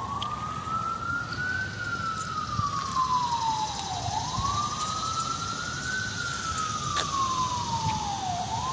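A siren wailing, its single tone rising quickly and then falling slowly, about once every four seconds.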